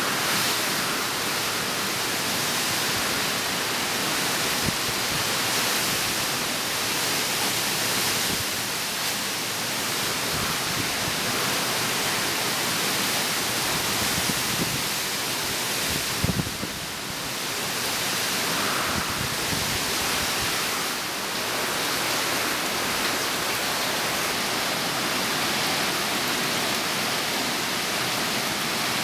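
Hurricane Sandy's heavy rain pouring steadily onto dense trees and foliage, a constant rushing hiss. A brief low knock sounds about sixteen seconds in, followed by a short easing of the rain.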